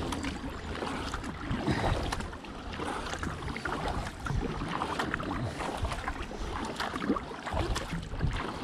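Kayak paddle blades dipping into and splashing through river water, stroke after stroke.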